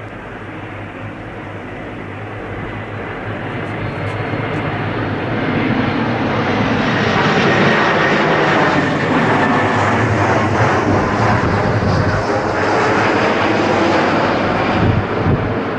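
Airbus A340 four-engine jetliner on final approach, its engines growing steadily louder over the first several seconds as it passes low, then holding a loud roar. A faint high whine runs through it.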